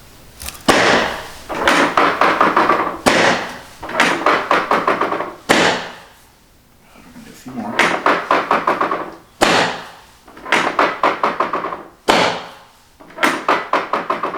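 Chiropractic drop table: its raised drop sections snap down under the chiropractor's thrusts, giving about five sharp knocks a few seconds apart.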